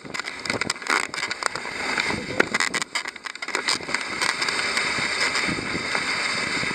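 A dog sled gliding over a packed snow trail: the runners hiss on the snow, and the sled knocks and rattles often in the first few seconds, then settles into a steadier hiss.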